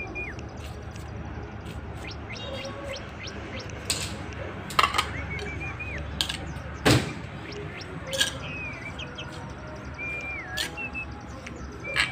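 A bird calls several times in short whistled phrases, over a handful of sharp knocks and clicks from a knife and spoon on a stone mortar, the loudest about seven seconds in.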